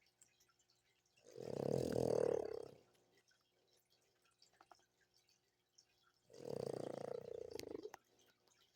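A sleeping pet snoring: two long, rattly snores about five seconds apart, each lasting about a second and a half.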